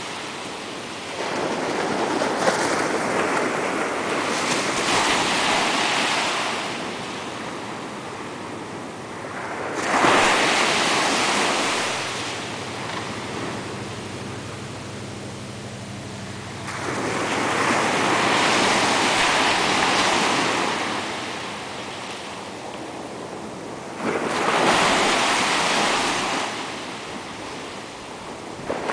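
Ocean surf: small waves breaking at the shoreline and washing up the sand, four swells of rushing water a few seconds apart with quieter lulls between.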